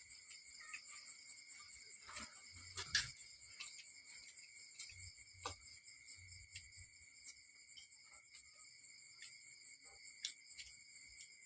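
Steady, faint insect chorus of several high continuous tones, crickets or similar, with scattered light clicks and knocks, one a little louder about three seconds in.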